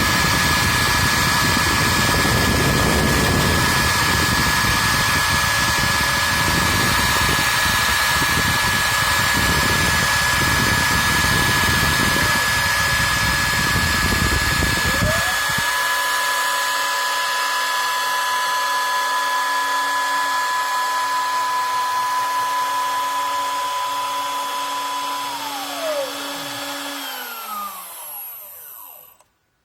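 CNC router spindle running with a steady high whine over a broad rumbling noise. The rumble stops abruptly about halfway and a second whine rises and holds. Near the end the spindle winds down, its whine falling in pitch until it goes silent.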